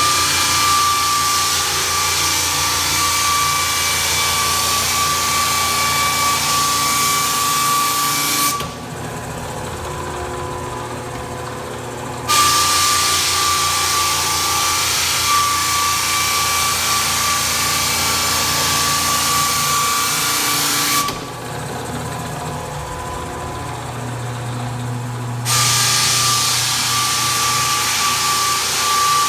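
Floor sander running on a first sanding pass: a loud, steady abrasive hiss with a high whine. It falls twice to a quieter hum for a few seconds, about eight seconds in and again about twenty-one seconds in, then comes back to full level.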